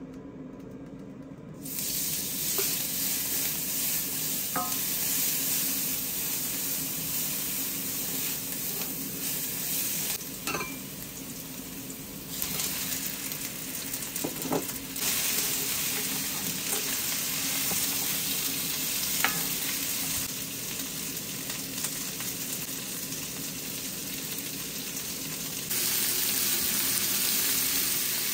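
Chicken and vegetables stir-frying in a pan on high heat, sizzling loudly. The sizzle starts about two seconds in, with a few light clicks along the way.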